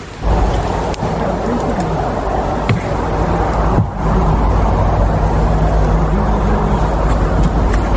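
A motor vehicle engine running steadily, starting suddenly, its pitch dipping and rising a few times in the first four seconds before settling.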